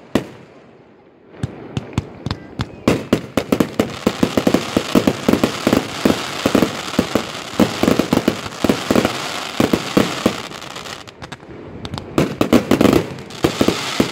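Fireworks display: a rapid, dense run of aerial shell bursts over continuous crackling, starting about a second in. It eases briefly near the end, then another quick cluster of bangs follows.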